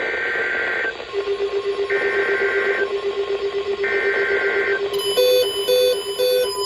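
Three Emergency Alert System SAME digital data bursts, a raspy two-tone warble, each about a second long with a second's pause between them. About five seconds in, a repeating pattern of alternating electronic alert beeps at several pitches begins.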